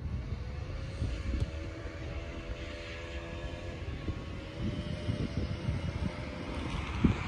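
Airplane engine droning overhead as it passes, a steady hum that bends slightly in pitch, over a low wind rumble. One sharp thump near the end.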